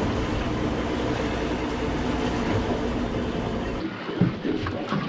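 Boat's outboard motor running under way, a steady rumble mixed with rushing wind and water noise; it drops away abruptly about four seconds in, leaving a few light knocks.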